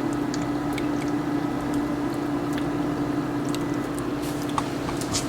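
Faint clicks and mouth sounds of someone tasting a spoonful of sweet potato pudding, over a steady low hum that runs throughout.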